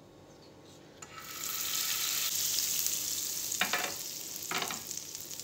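Butter hitting a hot nonstick grill pan and sizzling as it melts. The hiss starts about a second in and builds quickly, and two brief louder noises break through it near the end.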